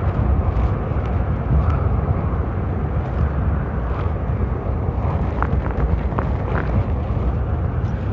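Wind buffeting an outdoor microphone: a steady low rumble with a hiss over it, with a few faint ticks about five and six seconds in.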